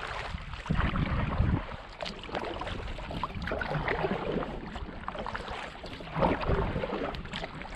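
Double-bladed kayak paddle strokes dipping and splashing in river water. Wind rumbles on the microphone in gusts about a second in and again near the end.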